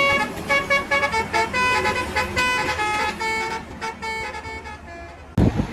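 Multi-tone 'telolet' bus horn playing a quick tune of short notes that change pitch several times a second, fading out toward the end. Near the end it cuts suddenly to a loud low rumble.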